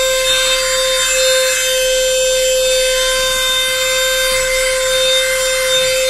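Portable handheld vacuum cleaner running at full speed on car carpet: a steady high motor whine with a hiss of rushing air.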